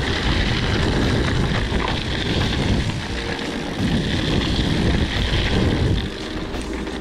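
Wind buffeting the microphone over a low, steady rumble, as from a camera moving along with a ride. It eases about six seconds in.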